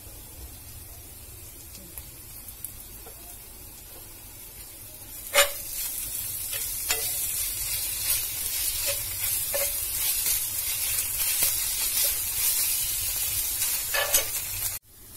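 Chopped onions with garlic and ginger paste frying in oil in a cast-iron pan, stirred with a steel spoon. Quiet for the first few seconds, then a loud sizzle sets in about five seconds in, with the spoon scraping and clinking against the pan, and it cuts off abruptly near the end.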